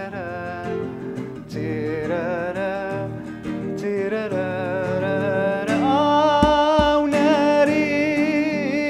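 A man singing a melody to his own nylon-string classical guitar accompaniment, holding one long note over the last three seconds or so.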